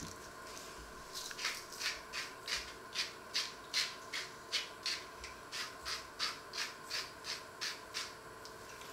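Hand-twisted glass spice mill grinding, a rhythmic run of short gritty scrapes at about three a second.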